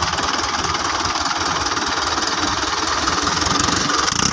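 Mahindra Arjun 555 DI tractor's diesel engine idling steadily.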